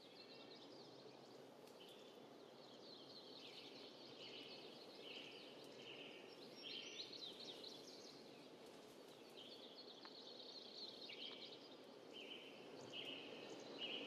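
Faint outdoor nature ambience: a low steady hiss with patches of short, high chirping calls repeating throughout.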